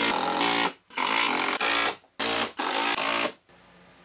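Cordless impact driver run in short, rhythmic bursts of motor whine, stopping and starting about four times and falling silent about three and a half seconds in.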